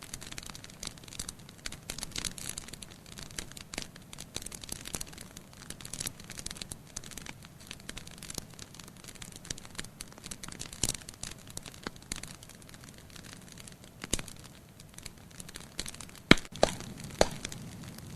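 Wood fire crackling in a fireplace: a dense run of small crackles, with a few louder pops, the loudest about sixteen seconds in.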